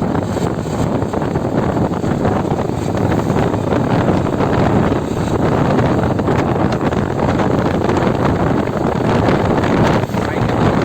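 Honda SP125 single-cylinder motorcycle being ridden: a steady rush of wind on the microphone over the engine and road noise.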